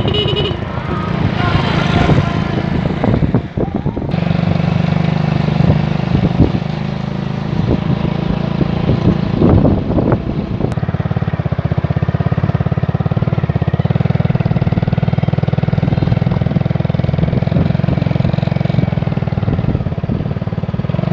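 Motorcycle engine running steadily at road speed, recorded from the moving bike, with a brief drop in level about three and a half seconds in.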